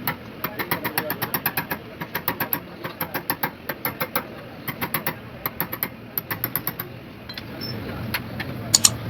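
Rapid, sharp metal tapping, several strikes a second in bursts with short pauses. A low rumble comes up after about seven seconds, and two louder knocks land near the end.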